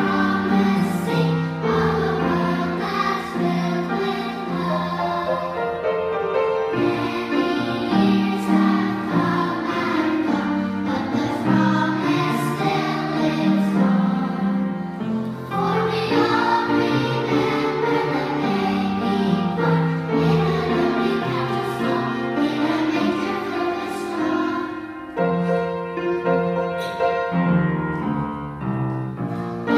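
Primary school children's choir singing.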